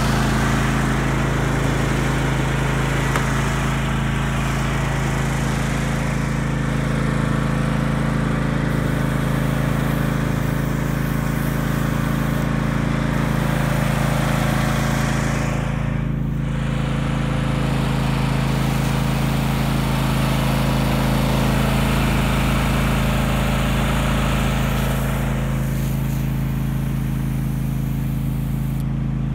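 John Deere 584 lawn tractor's engine running steadily at a constant speed.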